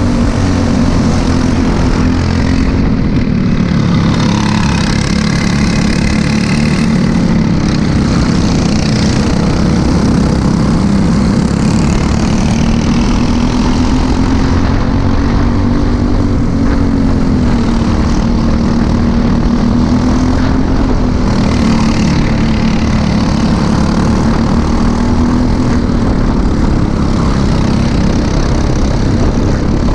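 Briggs & Stratton LO206 single-cylinder four-stroke kart engine running hard, heard from on board, its pitch rising and falling with the throttle, with other karts' engines close by.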